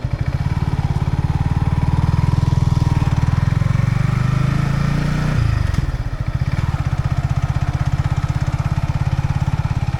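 Yamaha XSR155's single-cylinder engine through its stock exhaust, rising in pitch under acceleration for about five seconds, then dropping sharply at a gear change and running steadily after.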